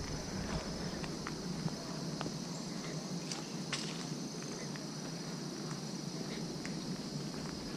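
Footsteps of someone walking along a paved woodland path, over a steady high-pitched drone of insects, with scattered small clicks.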